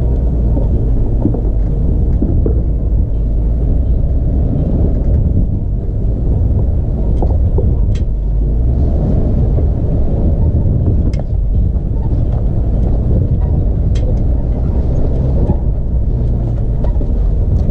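Four-wheel-drive vehicle's engine running with a steady low rumble as it crawls over a rocky track, with a few sharp knocks from rocks and the chassis every few seconds.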